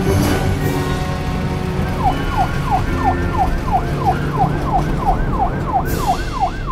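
Police siren in a fast yelp, each wail sweeping down in pitch about three times a second, starting about two seconds in, over a low rumble.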